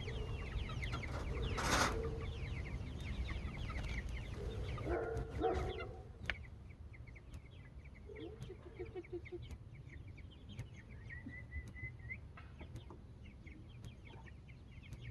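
Chicken flock of Cornish cross meat birds mixed with egg layers, peeping with many short falling chirps over lower clucking. The calling is busiest in the first six seconds, with a short loud burst about two seconds in, then becomes quieter and more scattered, with one longer held call near the end.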